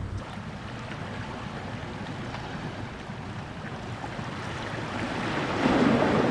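Sea waves washing on the shore, with one wave surging louder near the end.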